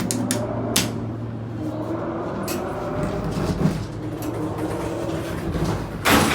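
Hydraulic elevator running with a steady low hum and a few light clicks, then its doors slam shut hard about six seconds in.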